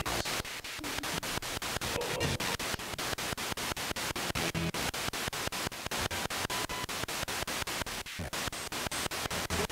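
Spirit box (ghost box) radio sweeping through stations: hissing static chopped into rapid pulses about six times a second, with brief snatches of broadcast sound.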